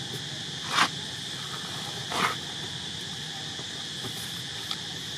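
Steady, high-pitched drone of insects, with two brief louder sounds about one and two seconds in.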